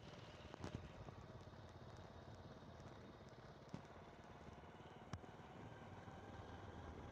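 Near silence: a faint low rumble with a few soft clicks.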